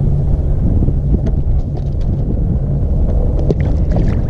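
Wind buffeting the microphone: a loud, steady low rumble, with a few faint clicks about three and a half seconds in.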